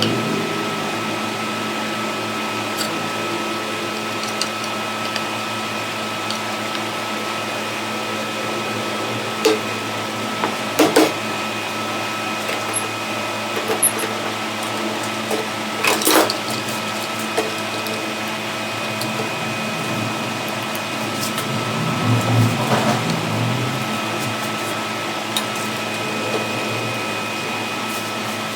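A small electric motor running steadily with a constant hum, while a cricket bat is worked on. A few sharp knocks or clicks come midway.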